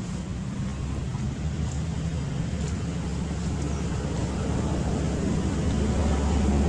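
Steady low engine rumble of a motor vehicle, growing gradually louder.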